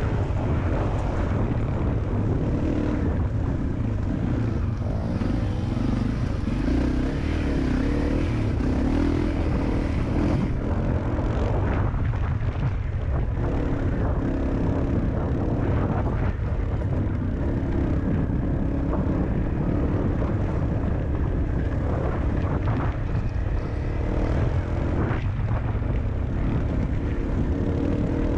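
Single-cylinder trail motorcycle engine running under load over a rough dirt track, its pitch rising and falling with the throttle, with a few knocks from the bike over the rough ground.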